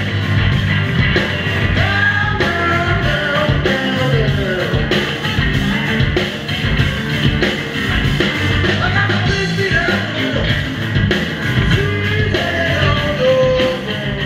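Heavy blues-rock band playing: electric guitar, bass and drums with a man singing.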